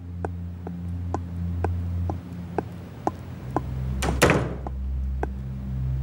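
A woman's footsteps on a hard tiled floor as she walks in carrying a tray, about two even steps a second, with a brief louder noise about four seconds in.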